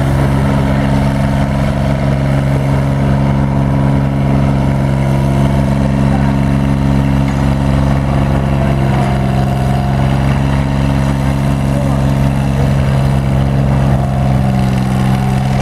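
Marion 33-M cable shovel's engine running loud and steady while the shovel works its dipper, the pitch holding constant throughout.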